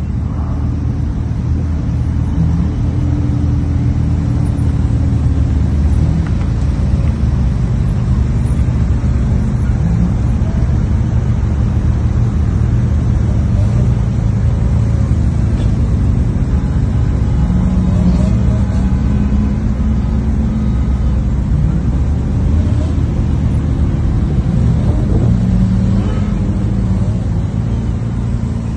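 Convoy of sports cars and supercars crawling past with their engines running in a steady deep rumble, with a few brief revs.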